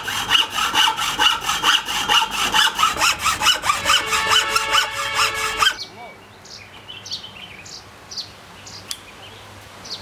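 Hand hacksaw cutting through a wooden board with quick, even back-and-forth strokes: the blade scrapes and rings on each stroke. The sawing cuts off abruptly about six seconds in, leaving quiet outdoor ambience with a few faint high chirps.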